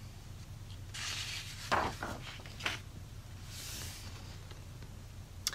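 Pages of a large old hardcover picture book being turned by hand: a paper rustle about a second in, two soft thumps as the page comes over and is laid flat, then another paper rustle.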